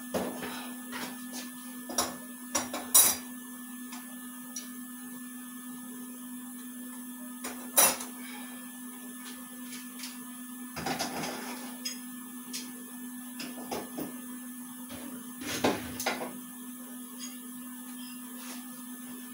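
Scattered metallic clanks and clatters of hand tools and parts being handled and set down, about a dozen knocks spread irregularly, the loudest around three and eight seconds in, over a steady electrical hum.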